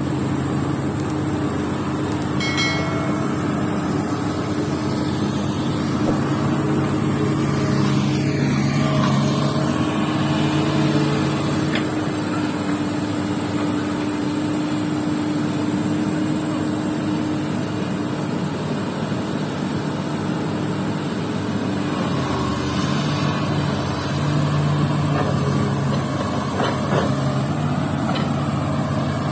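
Diesel engine of a hydraulic excavator running steadily, its engine note shifting a few times.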